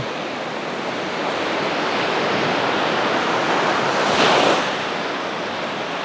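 Black Sea surf from a light storm breaking on a sandy beach: a steady wash of waves that swells and eases, loudest about four seconds in.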